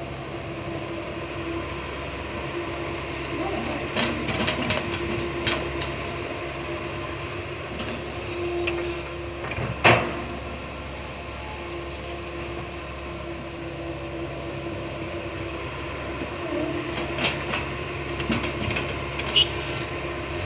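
Komatsu PC160 hydraulic excavator's diesel engine running steadily with a constant hum, under clusters of metallic clanks from the working machine and one loud knock about halfway through.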